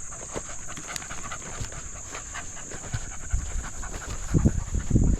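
A hound panting quickly, close by. It is hot after a long rabbit run on a warming day. A few louder low thumps come near the end.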